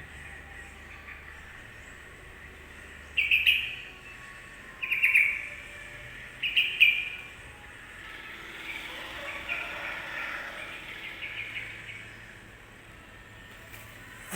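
Yellow-vented bulbul (trucukan) calling: three loud, short, bubbly phrases about a second and a half apart, then a softer, longer run of chattering notes.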